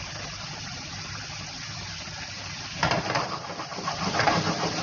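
Potato slices and chopped onion frying in hot oil in a non-stick pan: a steady sizzle that turns louder and crackly about three seconds in.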